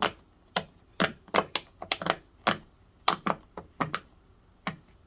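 Large heart-shaped silicone push-pop bubble fidget toy being popped on its loud side: about a dozen sharp clicking pops at an irregular pace, two or three a second.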